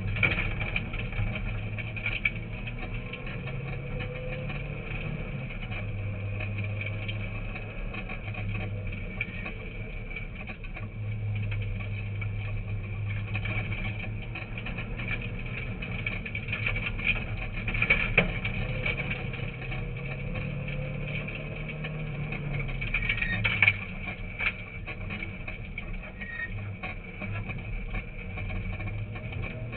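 Rally car's engine heard from inside the cabin while driving on a gravel road, its revs rising and falling through gear changes over steady road noise. A few sharp knocks come through, the loudest about two-thirds of the way in.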